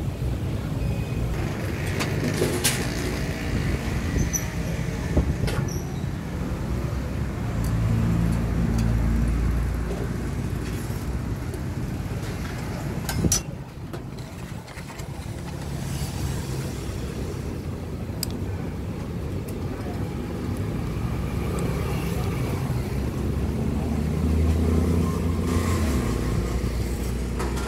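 Road traffic: motor vehicles running and passing close by, with a steady low engine rumble that swells louder twice. A single sharp knock about halfway through.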